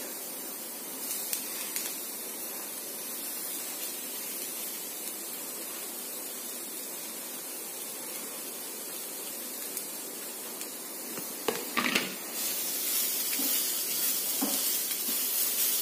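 Oil sizzling steadily in a frying pan of onion and moong dal, a constant hiss. About twelve seconds in come a few knocks, and then the sizzle grows louder and brighter as grated carrot is stirred through with a wooden spoon.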